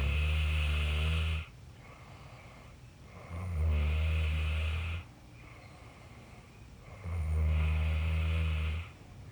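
A person snoring: three long, deep snores, each about a second and a half, coming roughly every three and a half seconds over a faint steady background.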